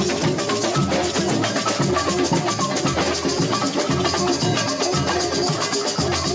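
Samba parade band (bateria) playing live: snare drums beaten with sticks over repeating low bass-drum beats, with shakers rattling in a steady, driving samba rhythm.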